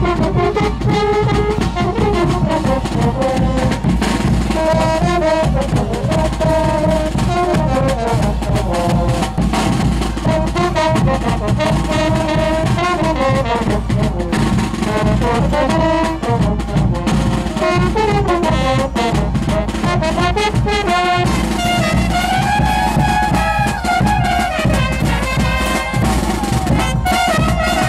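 Brass band with trumpets and trombones playing a melody over drums, continuously and loudly.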